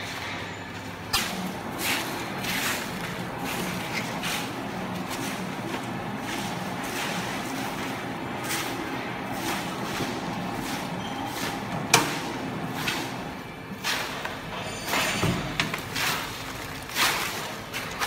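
Loose waste cardboard being thrown and stuffed into a vertical hydraulic baler's chamber: crumpling and scraping cardboard with repeated knocks, over a steady low hum. There is one sharp bang about twelve seconds in and several louder knocks near the end.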